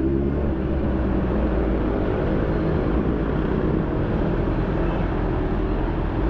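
2020 Honda CB650R's inline-four engine running through an SC Project aftermarket exhaust while the bike is ridden, holding a fairly steady pitch.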